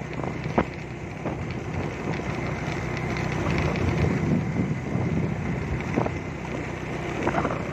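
Motorcycle engine running steadily while riding, with wind buffeting the microphone and a few sharp knocks.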